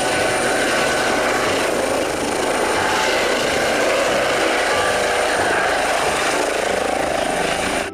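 Eurocopter EC135 twin-turbine air ambulance helicopter hovering low: a steady rush of rotor and engine noise with a thin high whine over it.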